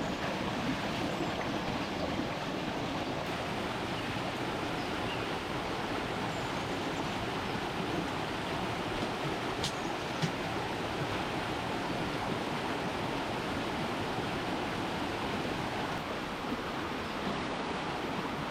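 Steady rushing of flowing water, with a single sharp click about ten seconds in.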